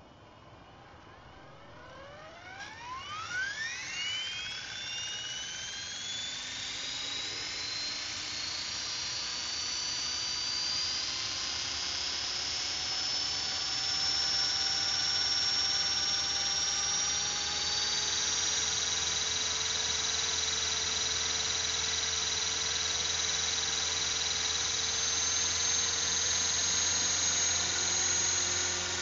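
Radio-controlled model helicopter spooling up on the ground. Its motor whine rises steeply in pitch over a few seconds, then settles into a steady high whine over a low rotor hum, growing gradually louder as the rotor comes up to speed.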